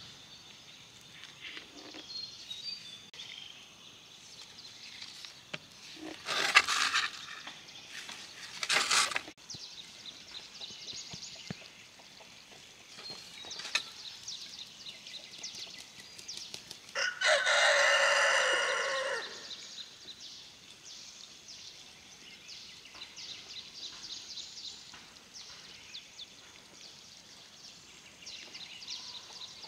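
A rooster crows once near the middle, one long call of about two and a half seconds that drops at the end. Earlier come two short scratchy bursts of gloved hands scraping and digging through dry soil, with faint soft scratching of soil afterwards.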